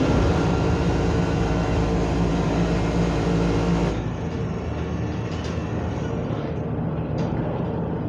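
Film soundtrack of WWII bomber propeller engines droning steadily, with several steady engine tones and deep bass. About halfway through it cuts to a somewhat quieter, duller drone with a few faint clicks, as heard from inside the cockpit.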